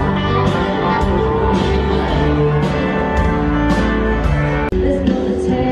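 Country band playing live, heard from the crowd: guitar over a steady drum beat of about two beats a second. Near the end the music cuts off abruptly and different music takes over.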